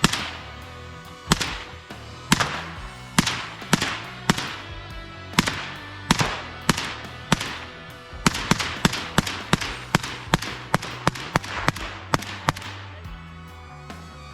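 Gunshots: single shots about a second apart, then a faster string of shots, several a second, from about eight seconds in. Background music plays under them.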